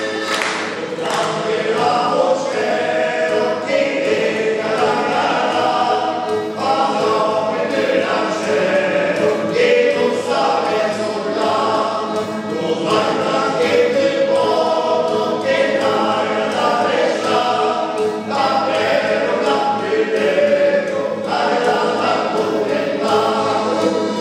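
A small group of men singing a Gascon song together in harmony, in lines a few seconds long with short breaks for breath between them.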